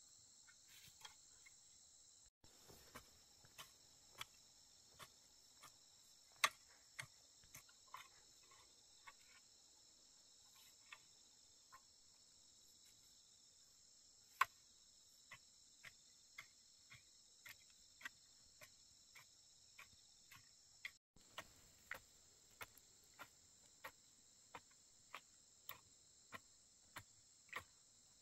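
Faint, steady chorus of insects such as crickets, with sharp clicks or taps on top. The clicks are scattered at first and become a regular run of about one and a half a second in the last quarter. The sound cuts out completely for an instant twice.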